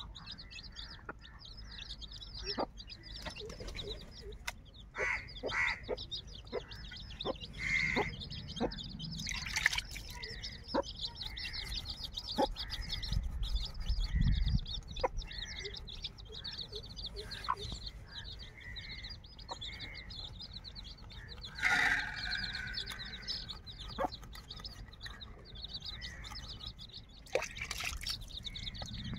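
Birds chirping steadily, with a short call repeated about once a second through the middle and one louder call about three-quarters of the way through. Scattered light clicks and taps.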